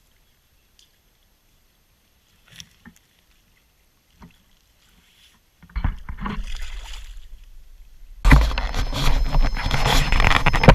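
Water splashing and sloshing: a few soft knocks at first, then splashing from about six seconds in that grows loud and continuous for the last couple of seconds.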